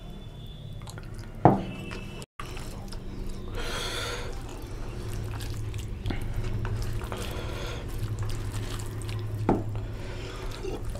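Gravy poured from a small bowl onto rice, then fingers mixing rice and oily chicken curry on a steel plate: wet squishing and dripping. A sharp knock about a second and a half in.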